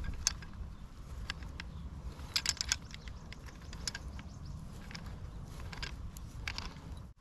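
Scattered light clicks and taps of pliers handling a brass pipe fitting, with a small flurry about two and a half seconds in, over a steady low rumble.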